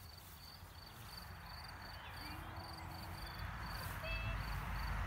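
A cricket chirping steadily, about three short trilled chirps a second, all at one high pitch. A hiss and low rumble grow louder near the end.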